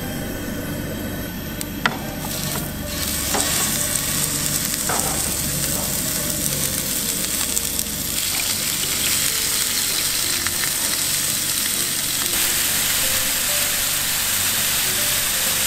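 Bone-in pork spare ribs sizzling as they fry in hot oil in a nonstick frying pan, a steady hiss that grows louder a few seconds in as the ribs go into the pan. A single sharp click comes near two seconds in.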